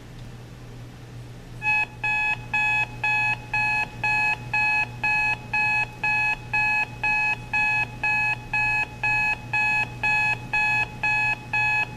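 Registry clock radio's alarm buzzer going off about a second and a half in: a fast, even train of short electronic beeps, roughly three a second, over a low steady hum.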